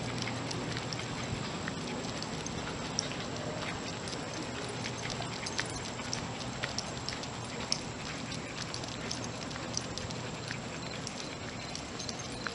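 Footsteps walking on an asphalt path: scattered light clicks and scuffs over a steady background hiss and low hum.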